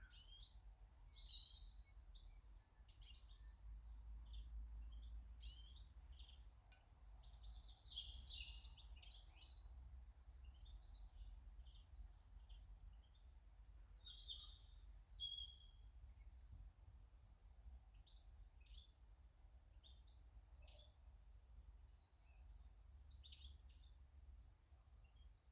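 Garden birds chirping and singing, faint: many short calls and song phrases overlapping throughout, loudest about a second in, around eight seconds and around fifteen seconds, over a steady low background rumble.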